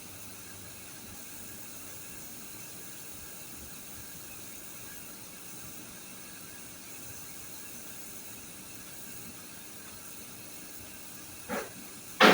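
Steady faint hiss of background noise, broken near the end by two short, sharp sounds about a second apart, the second much louder.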